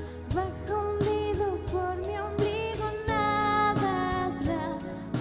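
A live rock band playing a song: a voice sings a melody over synthesizer keyboards, electric guitar and a drum kit keeping a steady beat.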